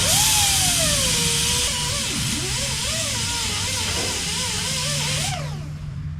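Cut-off wheel tool running for about five seconds with a loud hiss, its pitch jumping up at the start, sagging and then wavering up and down, before it is released and winds down.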